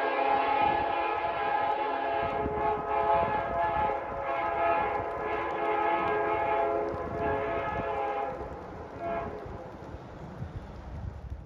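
Locomotive air horn sounding a long, held chord of several notes over the low rumble of a train, growing fainter near the end.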